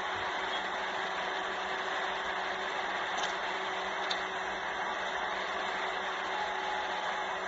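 Steady rushing noise with a faint low hum, unchanging throughout, with two faint clicks about three and four seconds in.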